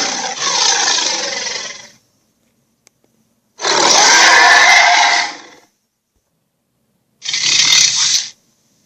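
Dragon roar sound effects: three harsh, rasping roars separated by silence. The first fades out about two seconds in with a falling pitch, the second lasts about two seconds, and the third near the end is shorter.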